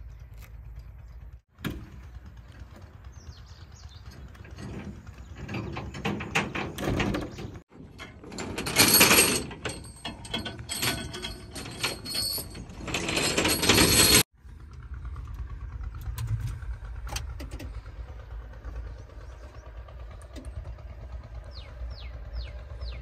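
JCB JS205 excavator cab door being unlatched and opened, with clunks, rattles and rustling as someone climbs into the cab over a low steady rumble. The loudest part is a stretch of scraping and rustling in the middle, and the sound breaks off abruptly several times.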